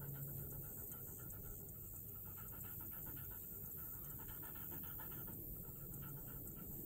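A German shorthaired pointer panting steadily and faintly.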